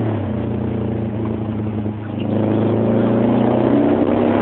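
Subaru Impreza's flat-four engine heard from inside the cabin while driving, with road noise. Its note dips briefly about two seconds in, then picks up and rises again.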